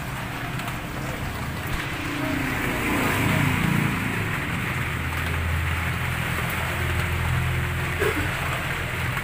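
Steady rain falling, an even hiss, over a low steady hum.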